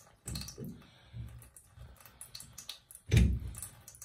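Scattered clicks and knocks of hands and a plastic tool working on a Delta shower valve cartridge, with one louder thump about three seconds in.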